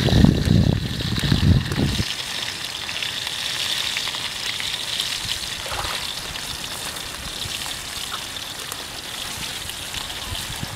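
Water splashing and sloshing in a shallow pond as legs move through it, for about the first two seconds, then a steady hiss.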